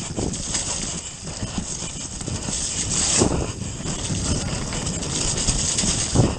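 Enduro mountain bike riding fast down a wet, muddy trail: a steady rush of tyres through mud and standing water, with constant rattling and knocking as the bike hits bumps and roots.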